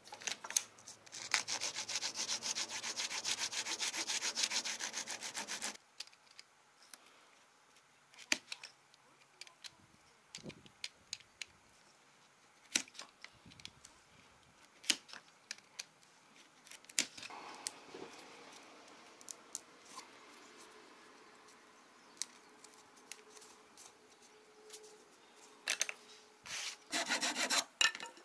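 Wood being worked by hand: about four seconds of steady scraping on wood that stops abruptly, then scattered light clicks and knocks of tools and wooden pieces, and another short burst of scraping near the end.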